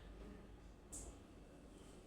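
Near silence: faint room tone, with a brief soft hiss about a second in.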